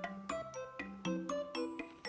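Light background music: a steady, bouncy run of short, bright pitched notes over a repeating bass note.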